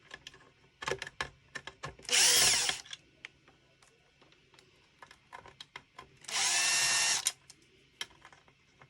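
Cordless drill used as a driver, backing screws out of a plastic RC car chassis: two short runs of the motor about a second each, with small clicks of screws and parts being handled between them.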